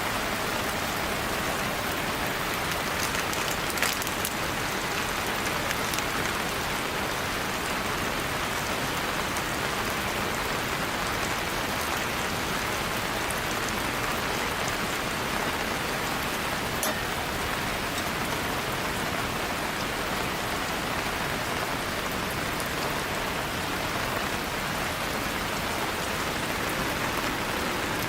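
Steady rain falling and pattering on surfaces, with a few sharper single drops standing out, one about four seconds in.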